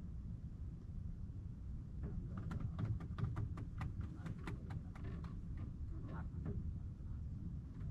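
A quick run of sharp clicks, about five a second for some three seconds starting about two seconds in, over a steady low rumble.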